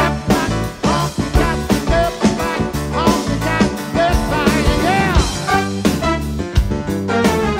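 Live rock band with piano and drum kit playing an upbeat honky-tonk groove. It is heard as an in-ear monitor mix, with almost no crowd noise, and a few sliding, wavering notes come in about halfway through.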